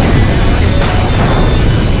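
Loud soundtrack music mixed with the continuous low rumble of a large explosion.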